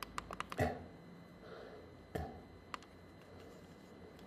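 Plastic push buttons on a programmable underfloor-heating thermostat clicking as they are pressed to step through the time and temperature settings. A quick run of about six clicks comes first, then two duller knocks and a few single clicks.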